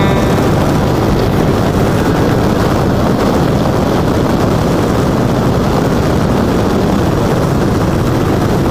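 Motorcycle riding at road speed, picked up by an onboard camera: a steady rush of wind noise over the microphone mixed with the engine and tyres, which cuts off abruptly at the end.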